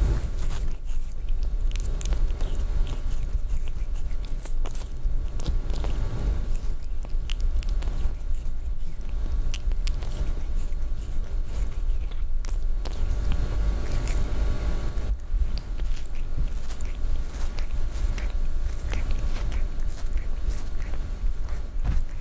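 Cat licking its fur as it grooms itself close to the microphone: a string of small, irregular mouth clicks over a steady low rumble.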